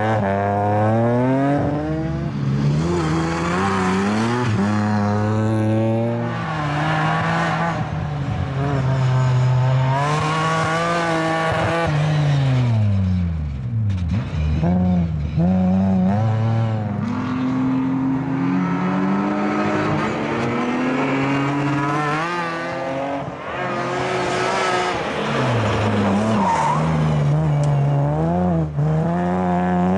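BMW E46 coupe race car's engine revving hard, its pitch climbing and dropping over and over as it accelerates, lifts and powers through corners, with tyres skidding on loose gravel.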